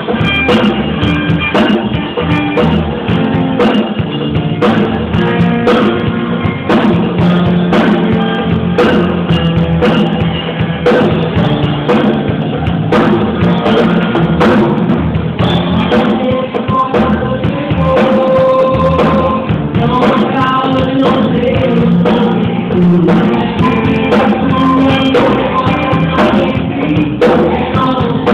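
Worship band music with a drum kit keeping a steady beat under sung melody.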